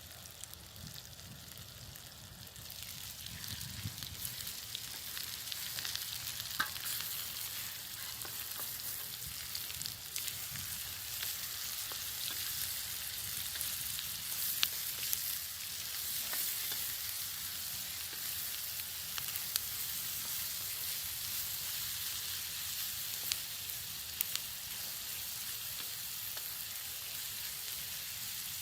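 Food frying in a pan: a steady sizzling hiss that swells about two seconds in, with scattered sharp pops.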